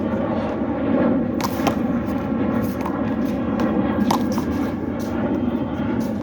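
Handball rally: sharp slaps of the small rubber ball being struck by hand and hitting the wall, roughly one a second, over a steady rumbling background noise.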